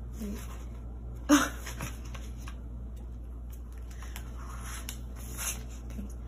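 Paper banknotes rustling and crinkling as a stack of bills is handled, counted and slid into a binder's cash envelope. One louder, sharp crisp rustle comes about a second in, with softer ones scattered after it.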